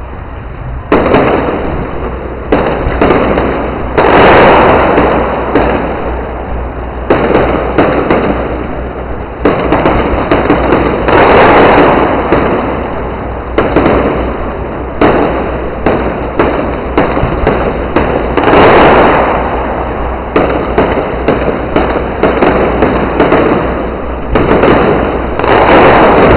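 Aerial fireworks shells bursting in quick succession, a loud bang every second or two, each followed by a long echoing decay. Heavier bursts stand out about four, eleven, nineteen and twenty-six seconds in.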